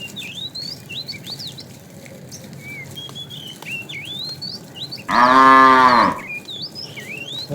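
A cow moos once, about five seconds in, a call of about a second whose pitch rises then falls. Small birds chirp throughout.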